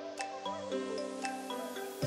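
Short instrumental music jingle: a few struck notes ringing out over held chord tones.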